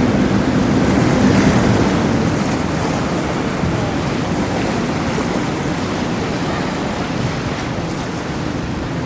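A motor yacht running through the inlet. The drone of its engines fades within the first couple of seconds, leaving a steady rush of wake and waves, with wind on the microphone.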